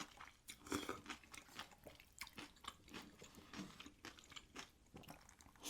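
Close-up chewing of crunchy raw cucumber noodles: many short, irregular, faint crunches and mouth clicks.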